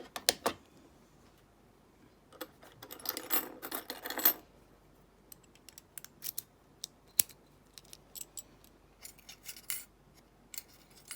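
Small metal clicks, taps and rattles from handling a padlock and its parts. A denser scraping rattle comes about three seconds in, with scattered single clicks after it.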